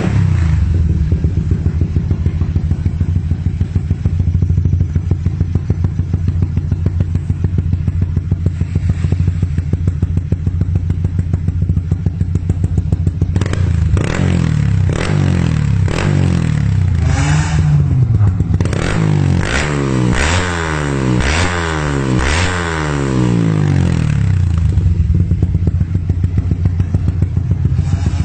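Yamaha Y15ZR single-cylinder motorcycle engine idling steadily, then revved about halfway through in a series of throttle blips that rise and fall quickly several times, before settling back to idle near the end.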